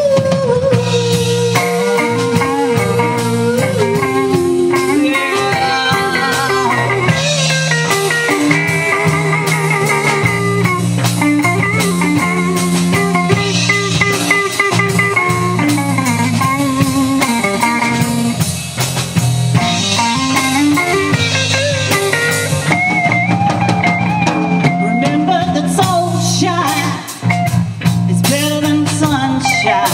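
Live blues-rock band playing an instrumental passage: an electric guitar lead with bending, sliding notes over bass guitar and a drum kit.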